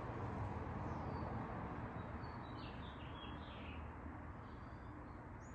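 Steady low background hum with a few faint, high bird chirps around the middle.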